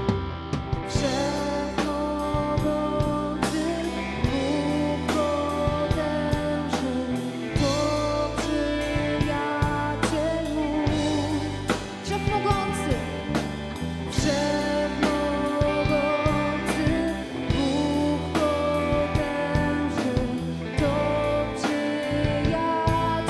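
Church worship band playing a song: a voice singing over a drum kit and guitar, with a steady beat.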